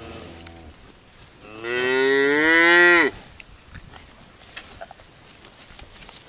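A cow mooing: the tail of one moo fades out at the start, then a loud moo of about a second and a half that rises in pitch and cuts off sharply.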